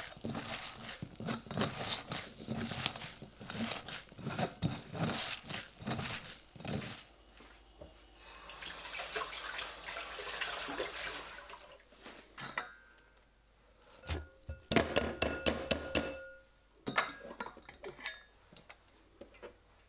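Hands squeezing wet chopped vegetables in a stainless-steel mesh strainer, a long run of squelching crackles. This is followed by a few seconds of steady trickling hiss, then sharp clinks of the strainer against a glass bowl and metal as the vegetables are moved across.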